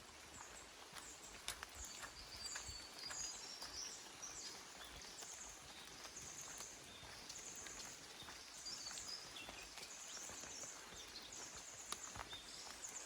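Small forest birds chirping, with many short high notes repeating through most of the stretch, over a faint background hiss. A few sharp footstep clicks from someone walking the track, one near the end.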